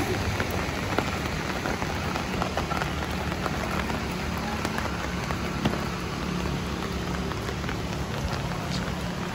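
Steady rain falling and pattering on surfaces, with many small drop ticks.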